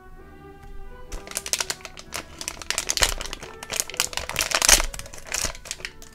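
Foil blind bag crinkling and tearing as it is ripped open along its tear strip, starting about a second in, with a loud burst of crackling just before the end, over background music.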